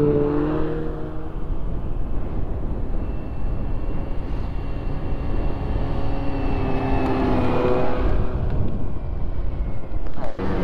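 Snowmobile engines passing by: one close at the start, its note falling away within a second or two, then a second sled approaching and going by about seven to eight seconds in, its pitch rising as it nears. A steady low rumble runs underneath.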